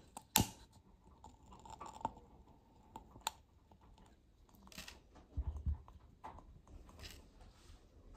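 Scattered small handling sounds of a glass candle jar being picked up off a cork coaster, lit and set back down: light taps and clicks, the sharpest just under half a second in, and a couple of soft low thuds about five and a half seconds in.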